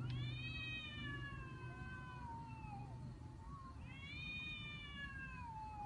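Cat yowling: two long, drawn-out meows, each rising briefly and then sliding slowly down in pitch.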